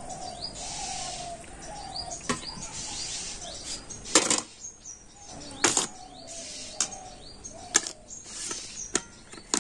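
Steel bowls clinking and knocking against a steel plate and the steamer rim as they are lifted out one by one and set down, several separate knocks a second or two apart. Birds chirp in the background.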